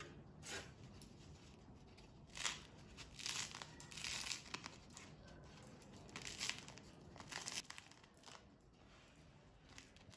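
Crusty, freshly baked mini baguette roll crackling and tearing as it is squeezed and broken open by hand: a string of short, crisp crackles and rips.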